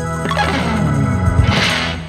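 Background music with guitar, with a falling pitch sweep in the middle.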